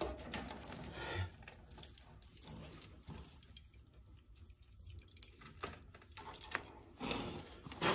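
Hands handling a blower motor's wiring harness: faint rustling of insulated wires with scattered light clicks and taps of the plastic connectors.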